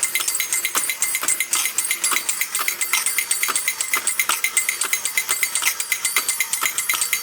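Alps Dandy Dog battery-operated tin drummer toy running, its mechanism beating the tin drums and cymbal in a rapid, steady metallic clatter with a bright ringing.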